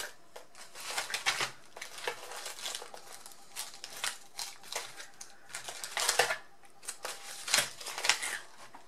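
Small plastic bags of earring hooks crinkling as they are handled and set down, in irregular crackles and light clicks, the loudest about six and seven and a half seconds in.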